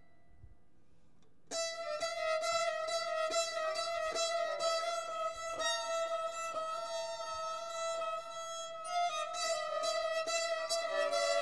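Two violins playing: near quiet for the first second and a half, then a sudden loud entry into a long held high note, with sharp accents every second or so and the line shifting to new pitches near the end.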